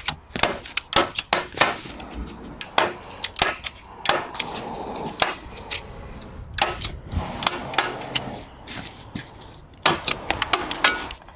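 Hand staple gun firing staples through a roofing membrane into wooden battens: a long, irregular series of sharp clacks, some in quick pairs.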